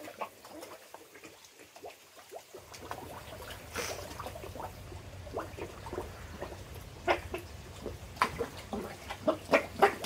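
Koi feeding at the pond surface, gulping pellets: a busy run of short wet smacking and popping sounds with small splashes, several louder pops in the second half. A low steady hum comes in about two and a half seconds in.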